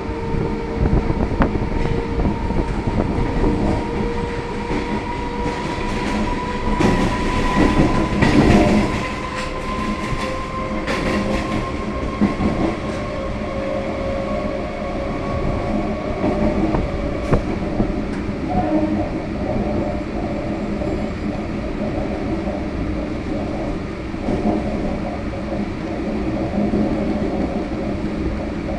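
EMU local train running, its traction motors whining steadily over the rumble and clatter of the wheels. The whine rises slowly in pitch through the first half as the train picks up speed, then holds level. A louder, noisy rush comes about seven to nine seconds in.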